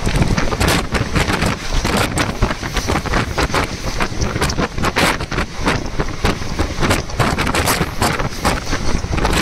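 Wind buffeting the microphone over a rapid, irregular clatter and knocking of steel wheels on rail joints as a long train of loaded open freight wagons passes close by.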